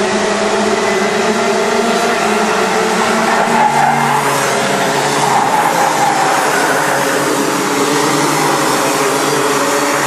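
Several racing karts' two-stroke engines buzzing at high revs as they go by, their pitches rising and falling over one another and loudest about halfway through.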